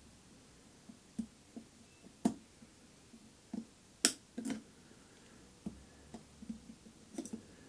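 A few small, sharp clicks and taps spaced irregularly, the loudest about four seconds in: circlip pliers and a circlip clicking against a ball-screw support while the circlip is worked into its groove.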